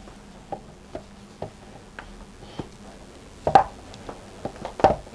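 Hands working the tight-fitting lid of a cardboard iPhone box loose: scattered small taps and scrapes on the cardboard, with two louder knocks about three and a half seconds in and near the end.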